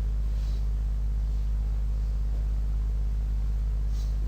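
Steady low electrical hum with a buzzing stack of overtones and a faint hiss, unchanged throughout.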